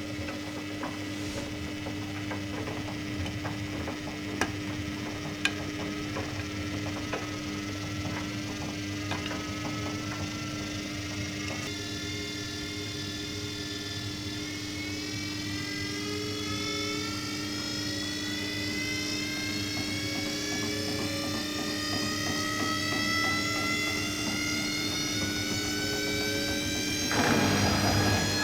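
Samsung Ecobubble WF1804WPU washing machine running. A few sharp knocks come in the first several seconds as the drum turns, then a motor whine rises steadily in pitch as the spin speeds up, with a louder rush near the end. The owner suspects broken shock absorbers or bearings behind the knocking.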